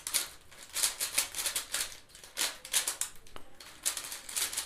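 QiYi WuQue 4x4 plastic speed cube being turned quickly by hand: an uneven patter of plastic clicks and swishes as its layers turn, about three turns a second.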